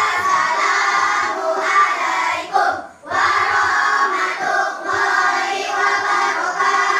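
A class of schoolchildren chanting a prayer together in unison, in a sing-song, with a short pause for breath about three seconds in.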